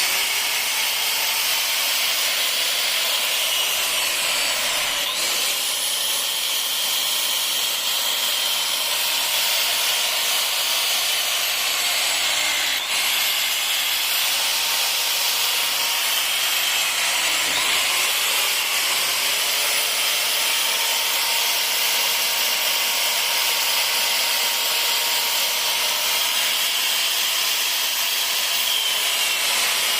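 Makita M5801B 1,050 W circular saw running steadily under power, a test run of the repaired saw.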